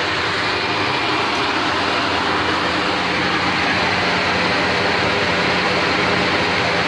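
1977 GMC pickup's engine idling steadily while warming up after a cold start, heard close by at the front of the truck.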